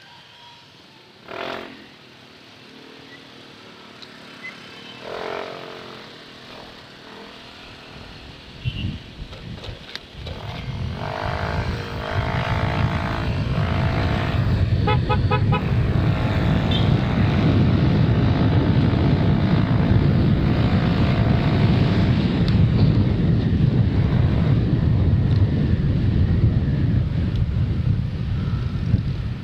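Motorcycle ride in city traffic. For the first ten seconds or so the bike is stopped, and passing motorbikes and street traffic are heard at a moderate level. Then the bike pulls away, and its engine and the wind rumble on the microphone grow loud and stay steady.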